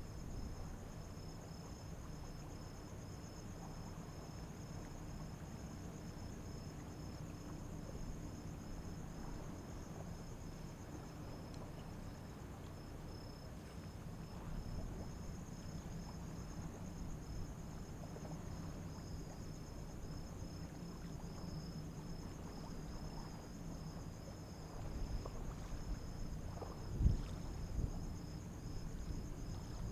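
Insects chirping in a steady, fast, high-pitched pulsing trill over a continuous low hum, with a couple of sharp low thumps near the end.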